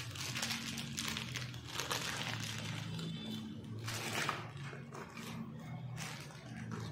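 Plastic pouch and tissue-paper packaging crinkling and rustling in the hands as a jewellery set is unwrapped, in uneven crackles.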